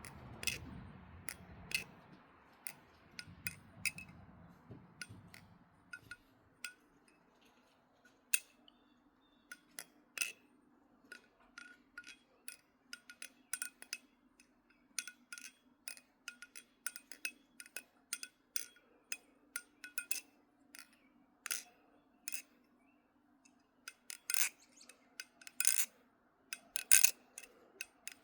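Balisong (butterfly knife) with milled Grade 5 titanium handle slabs being flipped: quick, irregular metallic clicks and clacks as the handles swing around and strike, with a cluster of louder clacks near the end.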